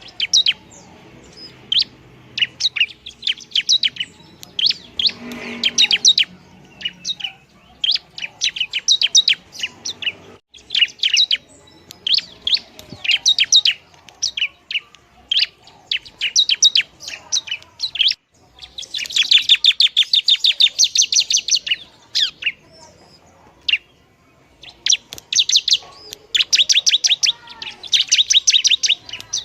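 Bar-winged prinia (ciblek) singing on and on: quick bouts of sharp, high chirping notes and trills, with a long, dense, rattling trill about nineteen seconds in.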